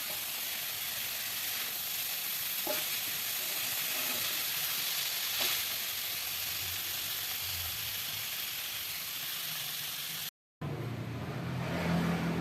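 Tempe sizzling in oil in a frying pan, with a few sharp spatula taps as it is stirred. About ten seconds in the sound cuts out briefly, and a different, steady low hum follows.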